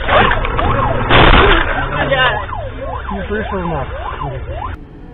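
Fire engine siren wailing in quick rising-and-falling sweeps, with a loud burst of noise about a second in; the siren cuts off suddenly near the end.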